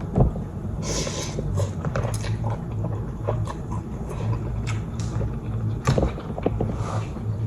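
Close-up eating sounds, chewing and slurping ramen noodles, with scattered mouth clicks and a slurp about a second in and another near the end. Under it runs a low, pulsing bass line from a neighbour's music coming through the wall.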